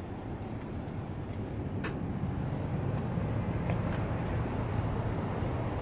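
Low rumble of road traffic, swelling from about two seconds in and dropping away near the end, with a couple of faint clicks.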